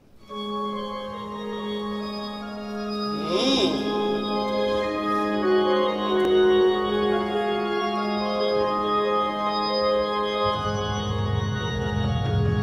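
Live band's organ intro: sustained organ chords over a held low note, with a brief rushing swell about three and a half seconds in. A bass line comes in about ten and a half seconds in.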